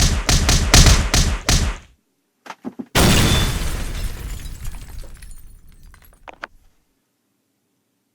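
A quick run of about six sharp knocks, then a few clicks and a sudden loud smash with a long crashing tail that dies away over about three seconds.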